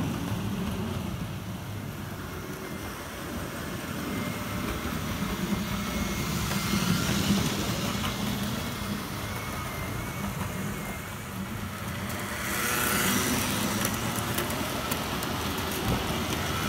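Model trains running on the layout's track: a steady rolling noise with a faint high motor whine, getting louder about twelve seconds in as a coach passes close by.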